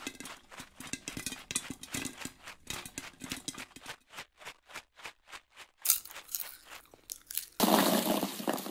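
Popcorn popping: many quick, irregular pops that thin out over the middle of the clip, then a loud noisy burst lasting about a second near the end.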